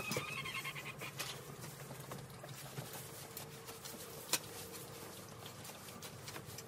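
Pitchfork working loose hay on a barn floor: rustling and scraping with scattered light clicks, and one sharp knock about four seconds in as the fork strikes something hard.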